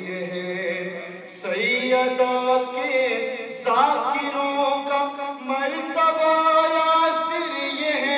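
A man singing a manqabat, a devotional poem in Urdu, solo into a microphone, in long held notes with small wavering turns. He starts new phrases about one and a half and three and a half seconds in.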